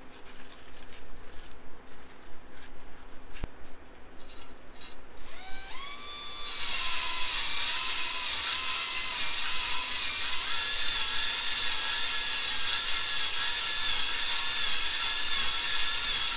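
Cordless drill spinning a 320-grit silicon carbide flex ball hone in a cylinder bore of a Honda GL650 engine block, laying a fresh bore surface for new piston rings. A few clicks and knocks of handling come first; about five seconds in the drill winds up, rising in pitch, and then runs with a steady whine as the hone scrubs the bore.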